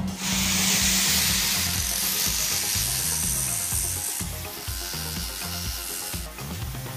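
Angle grinder's abrasive disc grinding the spoke tips of a small metal wheel spinning in an electric drill's chuck: a loud hissing grind that starts just after the beginning, eases a little about four seconds in and stops about six seconds in. Background music with a steady beat runs underneath.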